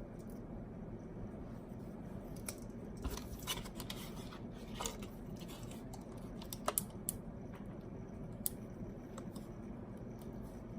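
Packaging being cut and worked open by hand to free a multi-tool: scattered light clicks and scrapes, a few sharper ones in the middle, over a faint steady background.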